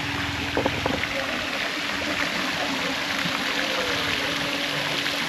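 Steady rush of running water, with a faint steady hum underneath and a few light knocks in the first second.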